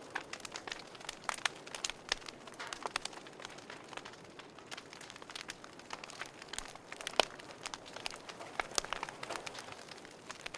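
Wood fire in a fireplace crackling lightly: irregular sharp pops and snaps over a soft hiss of flames, with one louder snap about seven seconds in.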